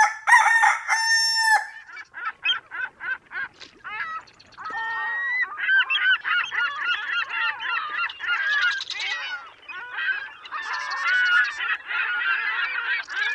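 A flock of birds honking. A few loud, buzzy calls open it, then sparser calls follow, and from about five seconds in many calls overlap densely.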